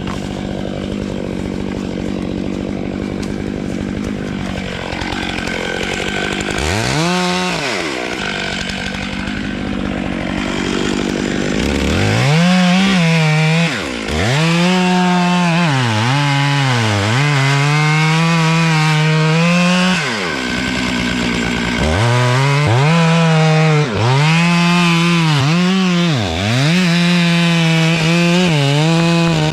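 Two-stroke chainsaw bucking the felled tulip poplar. It idles at first, is revved briefly about a quarter of the way in, then runs at high throttle through two long stretches of cutting, its pitch dipping briefly now and then as it drops back.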